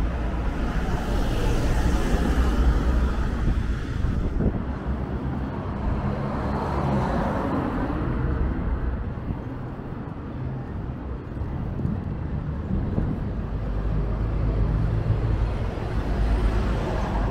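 Road traffic passing close by: several vehicles drive past one after another, each swelling and fading, over a continuous low rumble.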